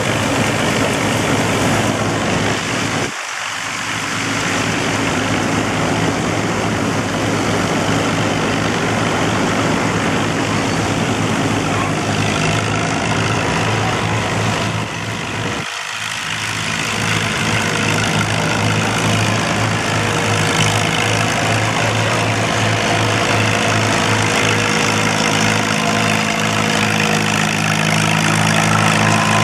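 A belt-driven threshing machine running with its steady mechanical rattle, over the steady running of an Allis-Chalmers WC tractor engine working the belt. The engine grows more prominent toward the end, and the sound drops out briefly twice.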